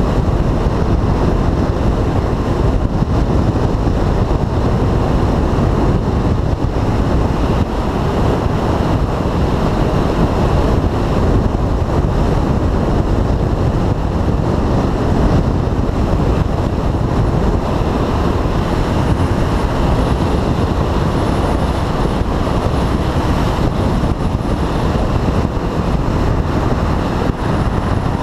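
Steady wind noise on the microphone of a Yamaha 250 dual-sport motorcycle riding at road speed, with the engine running underneath.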